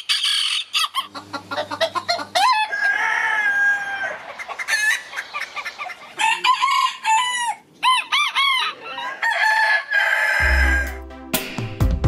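Bantam chickens calling: hens clucking and a rooster crowing, with long drawn-out calls and several rising-and-falling ones. Music with a deep bass line comes in near the end.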